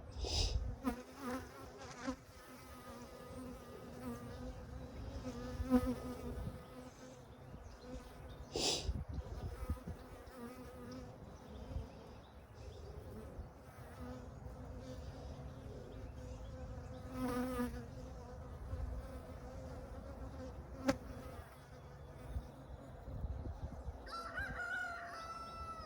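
Honeybees buzzing around a hive: a steady hum, swelling louder as bees fly close past now and then. A bird calls near the end.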